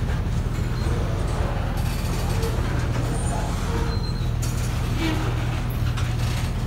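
Freight train of covered hopper cars rolling past a grade crossing: a steady low rumble of steel wheels on rail, with brief clatter now and then as the wheels cross rail joints.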